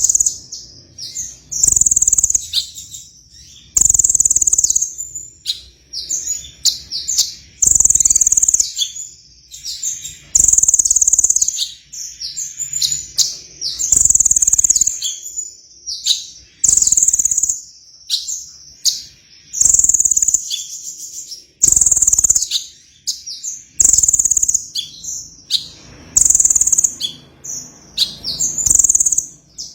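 A sunbird (Indonesian 'kolibri') singing prolifically: loud, very high-pitched bursts of rapid song about every two to three seconds, with softer chirps and twitters in between.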